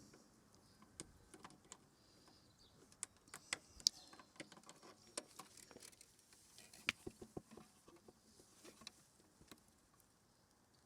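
Faint, irregular clicks and light knocks of small plastic hose fittings being handled and pushed into place on a pressure washer hose reel.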